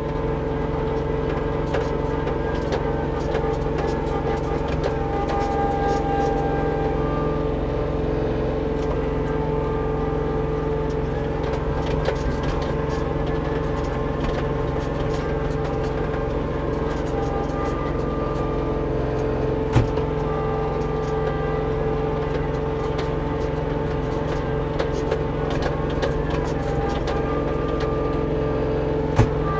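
Kubota LX2610 compact tractor's diesel engine running at a steady speed as the chained tractor moves down a snowy slope, with a couple of sharp clicks, one about two-thirds of the way in and one near the end.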